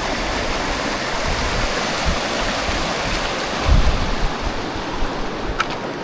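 Rushing mountain stream water, a steady loud hiss, with low rumbling bumps of wind or handling on the microphone, strongest about four seconds in.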